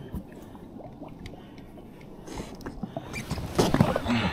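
A few light clicks and handling sounds, then water splashing from about three seconds in as a hooked snapper is brought to the surface beside the jetski.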